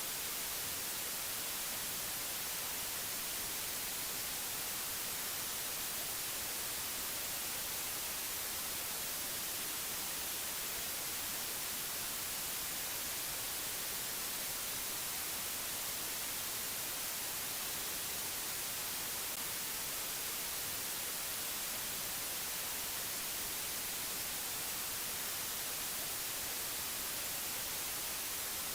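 Steady white-noise hiss, strongest in the high frequencies, unchanging and without any other sound.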